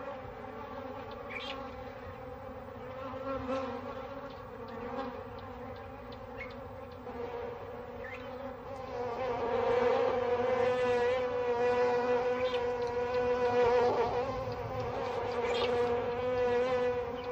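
African honeybees buzzing in a steady drone, which grows clearly louder about nine seconds in.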